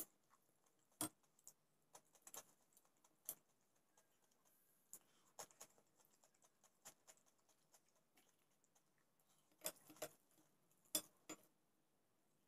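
Faint, scattered sharp clicks and crackles of crisp, hollow golgappa (pani puri) shells being handled and cracked open, with a few close together near the end.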